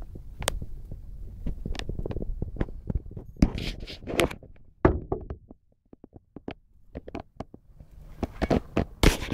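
A run of irregular knocks and thumps over a low rumble, dying down past the middle, then a cluster of louder, sharper knocks near the end.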